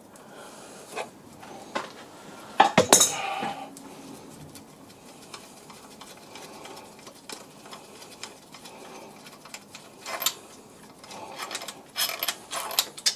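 Sharp metal clinks and knocks of a spanner and steel engine parts being handled as a connecting-rod cap is taken off a Ford 1.0 EcoBoost crankshaft. A loud cluster of ringing clinks comes about three seconds in, with single lighter clinks scattered through and a few more near the end.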